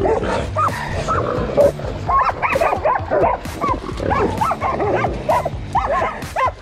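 Several hunting dogs barking and yipping excitedly, their short barks coming thick and overlapping, around a feral hog they have caught.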